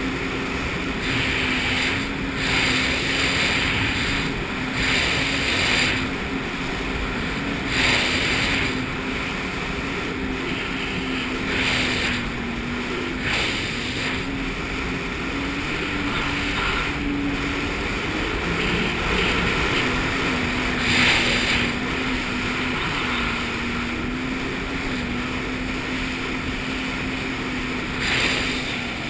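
Jet ski engine running at a steady cruising speed, its pitch shifting slightly now and then. Every few seconds comes a brief rush of water spray and wind as the hull crosses the chop.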